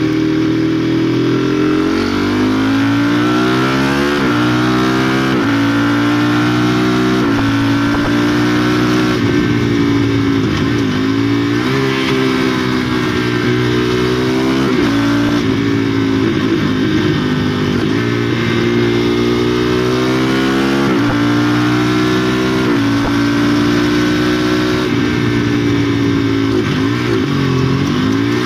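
KTM Duke 390's single-cylinder engine through a de-catted (NOCAT) exhaust, revving hard under acceleration. Its pitch climbs and drops sharply several times as the bike is ridden through bends and along a straight.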